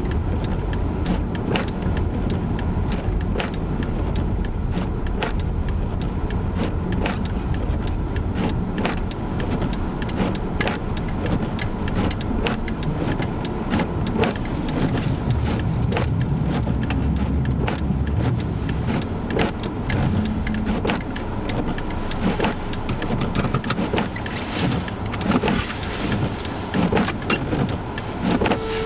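A car driving on a snow-covered road, heard from inside the cabin: a steady low rumble with many sharp, irregular ticks and knocks.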